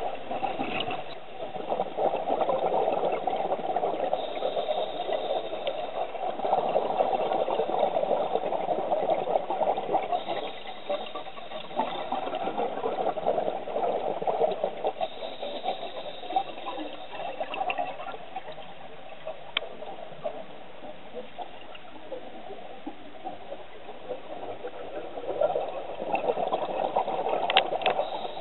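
Underwater bubbling and crackling of scuba divers' exhaled air from their regulators, in long surges a few seconds each, quieter for several seconds past the middle.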